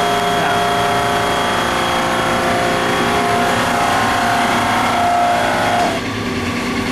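Building heating and cooling machinery running: a loud, steady mechanical hum with several held whining tones, dropping a little in level about six seconds in.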